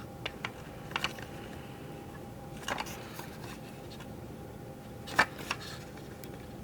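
Scattered small clicks and taps of hard plastic toy parts being handled and pressed together while fresh super glue sets, the loudest about five seconds in, over a faint steady hum.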